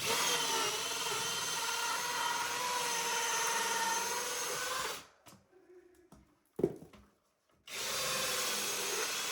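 A power tool running steadily, cutting down the shower drain pipe to height. It runs for about five seconds, stops, and starts again near the end, with a single knock in the pause.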